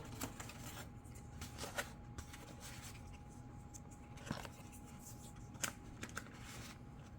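Sparse light clicks and rustling as small parts of an RC plane are handled and pressed into place. A faint steady tone hums underneath.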